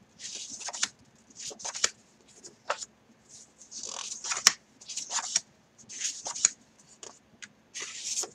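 Sheets of patterned craft paper being handled and turned over, a run of short papery rustles and slides about once a second, with a sharp tap about halfway through.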